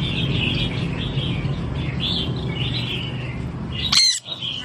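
Sun conure chirping repeatedly, with one loud shrill screech near the end, over a steady low hum.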